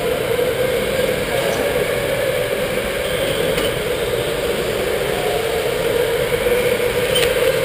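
Steady machine whir with a droning pitch that wavers slightly, and a few faint clicks.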